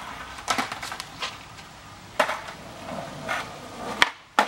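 Skateboard wheels rolling on asphalt with several sharp wooden clacks of the deck. Near the end the tail pops for a flip trick, the rolling noise stops while the board is in the air, and the board slaps down on the landing a moment later.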